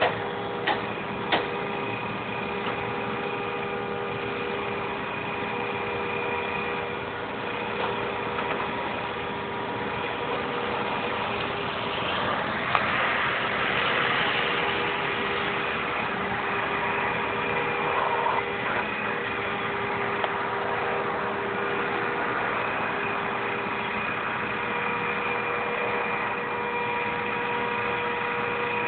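Vehicle engine running steadily with an even, multi-tone hum, and a louder rushing noise swelling for a few seconds near the middle.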